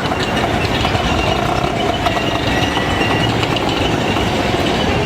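Busy street traffic: a steady rumble of vehicle engines, with a faint held tone a couple of seconds in.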